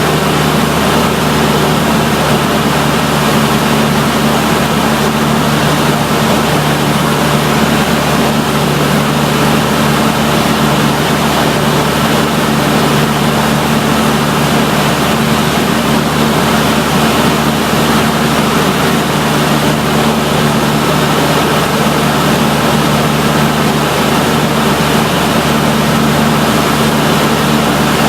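Cessna 152's four-cylinder Lycoming engine and propeller running at a steady, unchanging power, with a constant rush of air noise over it.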